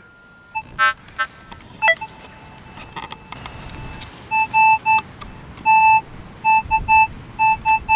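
Minelab CTX 3030 metal detector sounding a strong target: runs of short beeps on one steady pitch, several a second, as the search coil sweeps back and forth over a buried metal object.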